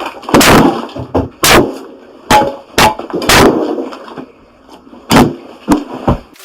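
A series of about eight loud bangs at uneven intervals, each with a short ringing decay.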